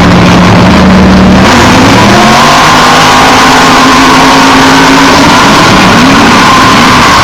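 Off-road race vehicle engines running loud, several at once. One engine holds a steady note for about the first second and a half, then the engines rev, with pitch rising several times near the end.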